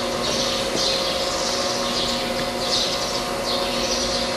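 CNC slotting machine running: a steady motor hum with a hiss that repeats about once a second, in time with the ram's strokes, as the cutter is brought slowly up to the workpiece.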